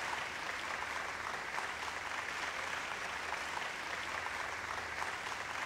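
Large audience applauding steadily, welcoming a speaker onto the stage.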